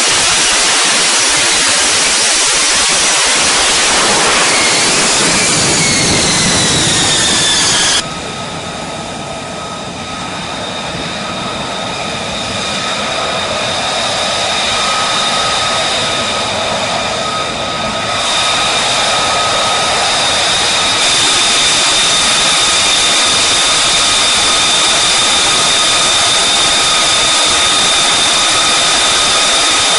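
Jet engine noise: loud rushing with a whine that falls in pitch, then a sudden change about eight seconds in to a quieter sound. Steady high whine tones then build and hold to the end.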